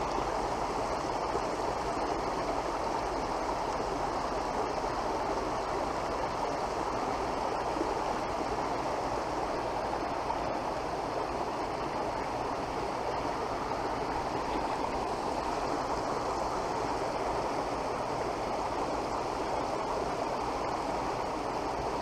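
Small rocky waterfall spilling into a pond: steady, even splashing of running water.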